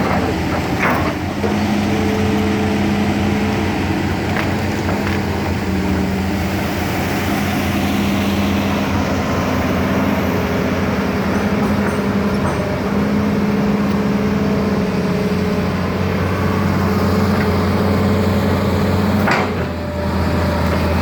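Hitachi excavator's diesel engine running steadily, with a humming tone that cuts in and out over the drone and a few sharp knocks, the loudest about nineteen seconds in.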